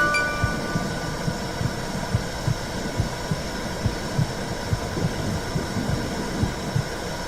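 Womb sound: a heartbeat's low, evenly repeating thumps over a steady whooshing hum. Chime tones ring out and fade just after the start.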